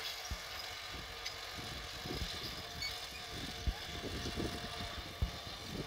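John Deere 5210 tractor's three-cylinder diesel engine running steadily under load as it pulls a disc harrow through dry soil, heard at a distance. A few short low thumps break in.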